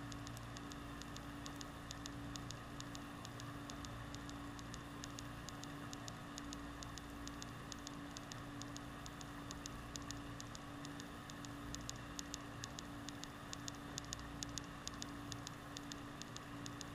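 Underwater sound through a GoPro's waterproof housing resting on the seabed: a steady low hum under a constant crackle of sharp clicks, several a second, which grow louder in the last few seconds.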